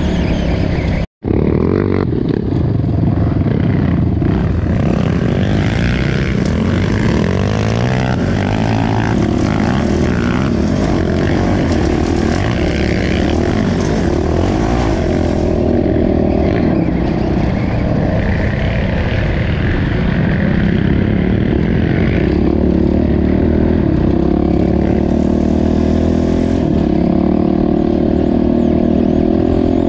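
Off-road dirt bike engine running under load on a dirt trail, heard from the bike itself, its pitch rising and falling as the rider works the throttle. The sound cuts out for an instant about a second in.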